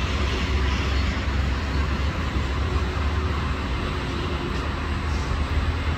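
Steady low rumble of a passenger train pulling out and moving away, with a continuous hiss over it.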